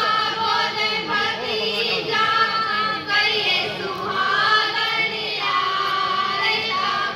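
Female voices singing a Haryanvi folk song in long, held notes that waver slightly. The singing stops near the end.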